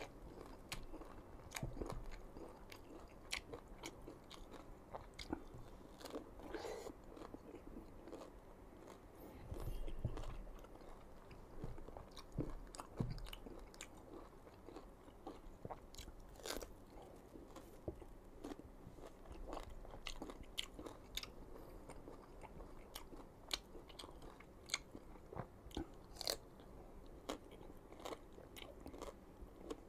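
Crisp crunching bites and chewing of raw green mango, close to the microphone, with irregular crunches every second or so.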